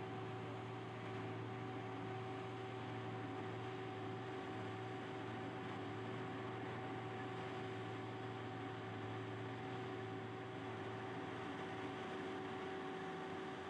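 Heavy land-clearing machinery running steadily at a distance, a constant engine drone with a steady hum.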